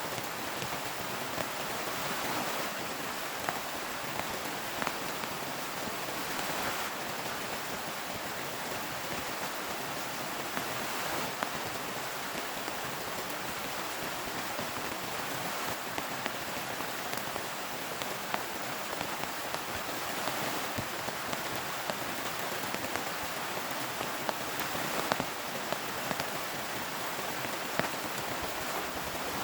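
Heavy rain falling steadily, with scattered sharper drop hits standing out from the even patter.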